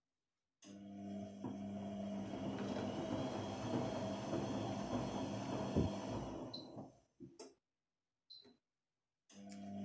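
Electrolux top-loading washing machine running with a steady hum, starting about half a second in, stopping about seven seconds in and starting again near the end. Its control-panel buttons give two short high beeps, one just before it stops and one about a second and a half later.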